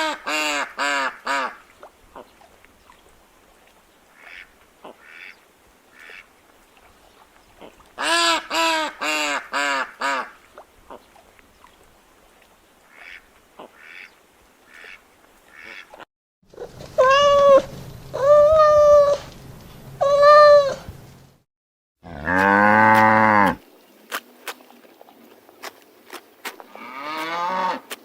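A duck quacking in two quick runs of calls about eight seconds apart, with fainter calls between. Past the middle, other animal calls follow: three drawn-out calls of steady pitch, then a single lower call.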